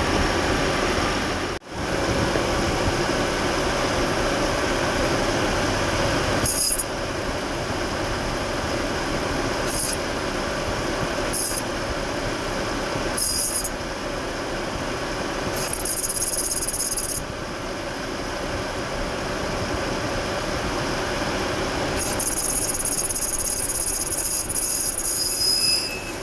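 Jaguar engine running while the clutch squeals in repeated high-pitched bursts, six or so, the last lasting about four seconds. The squeal is the clutch noise the car is being shown for.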